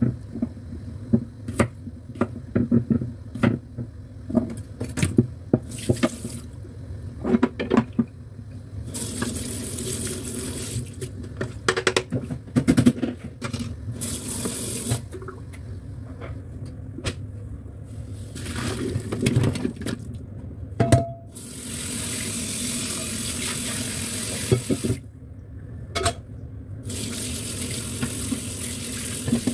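A knife knocking on a wooden cutting board in a quick, uneven run of sharp taps for the first several seconds. After that a kitchen tap runs into a metal sink in stretches, turned on and off several times, while chunks of boiled beef are rinsed under cold water.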